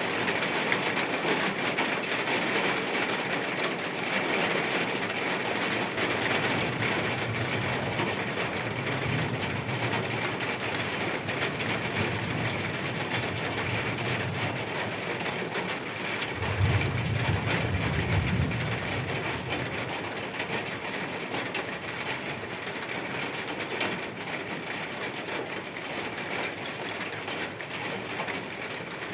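Steady rain falling at night in a city, with a low rumble swelling and fading a few times and loudest for a couple of seconds a little past the middle.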